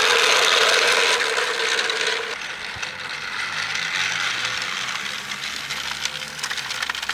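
Battery-powered toy train's geared motor running as it pulls loaded wagons along plastic track: a steady mechanical whir with a faint hum, growing quieter after about two seconds.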